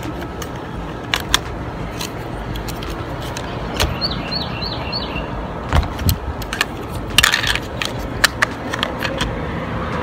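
Scattered light plastic clicks and taps as fingers handle the plastic chassis and battery compartment of a 1/12-scale RC truck, over a steady outdoor background hiss. A brief burst of rattling comes about seven seconds in.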